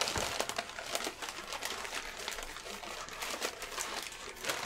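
Brown paper bags crinkling and rustling as they are handled and torn open, a steady run of small crackles.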